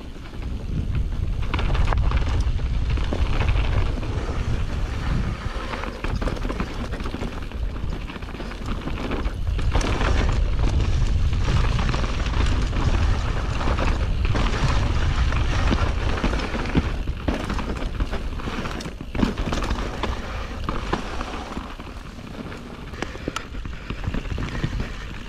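Mountain bike descending a dirt singletrack: heavy wind buffeting on the microphone and tyre noise on the trail, with short knocks and rattles from the bike over rough ground. The rumble rises and falls with the riding.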